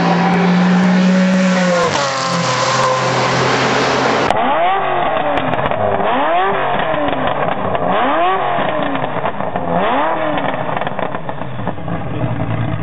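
Supercar engines. The first engine runs with a steady note that drops in pitch about two seconds in. After a cut, a second engine is revved four times in a row, each rev rising and falling in pitch.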